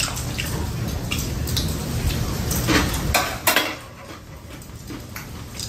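Metal chopsticks clicking and scraping against a stainless steel plate, several sharp clinks, the loudest around the middle. A low rumble underneath stops about three seconds in.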